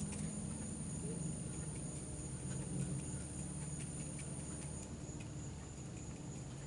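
Paintbrush dabbing on acrylic paper: soft, irregular taps over a steady low hum.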